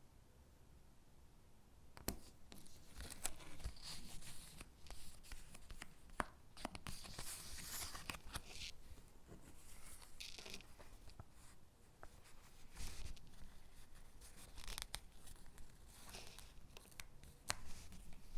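Stickers being peeled from their backing sheet and pressed onto paper gingerbread cutouts: soft crackly peeling and paper rustling with light ticks and taps, starting about two seconds in.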